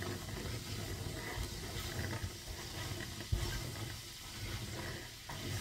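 Fried struffoli dough balls being stirred and turned with a spatula in a nonstick frying pan of melted honey: a soft, steady scraping and shuffling, with one light bump a little past halfway.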